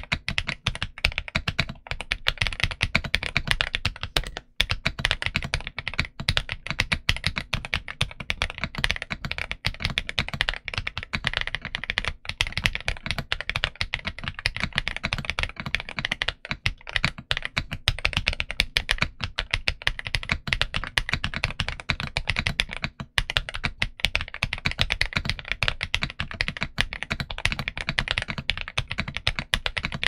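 Continuous fast typing on a Zuoya GMK84 (Boyi LS01) mechanical keyboard with KTT Kang White linear switches and dye-sublimated PBT Cherry-profile keycaps: a dense, steady stream of keystrokes, close-miked.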